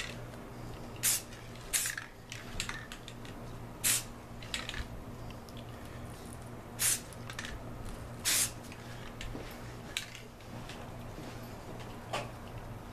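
Aerosol spray-paint can giving a series of short hissing bursts, each about half a second, at irregular intervals of a second or more, with a low steady hum underneath.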